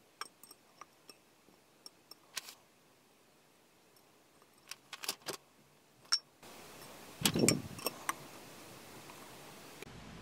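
Light glass-and-metal clinks and taps as a clear glass lamp shade is handled and seated onto the brass fitting of a table lamp around a filament bulb. About seven seconds in there is a louder clunk with a short rattle.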